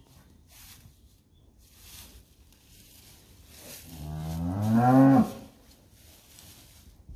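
A cow moos once, a low call of about a second and a half that starts about four seconds in, rises in pitch and loudness, then cuts off sharply.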